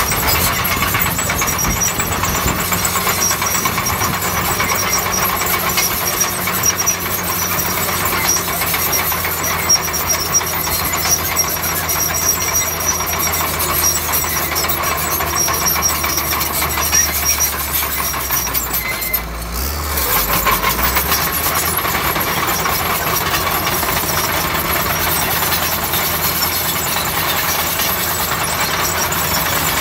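Shantui bulldozer's diesel engine working steadily under load, its note dipping briefly about two-thirds of the way through before picking up again.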